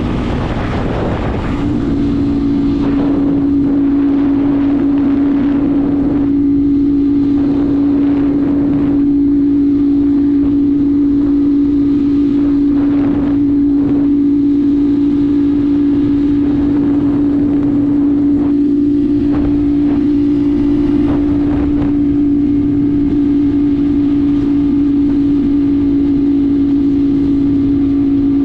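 Motorcycle engine running at steady revs while the bike cruises, with wind rushing over the microphone. The engine note shifts in the first couple of seconds, then holds one steady pitch.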